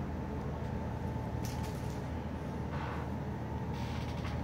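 Steady low room hum with a few short rustles of small plastic toy pieces being handled, about a second and a half in, around three seconds, and near the end.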